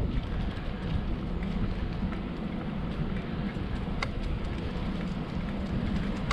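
Steady wind rush on the microphone and the rumble of bicycle tyres rolling along an asphalt path, with a few small clicks.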